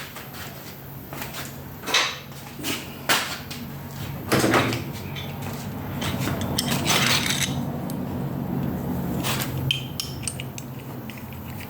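Metal tools and parts clinking, tapping and knocking on a workbench while a broken bolt is worked out of a part, over a low steady hum. The knocks are irregular, with a busier stretch of clatter around the middle.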